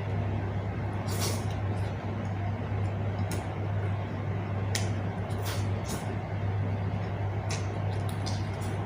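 Close-miked mukbang eating: chewing and wet mouth smacks, with about a dozen short, sharp clicks scattered through. A steady low hum runs underneath.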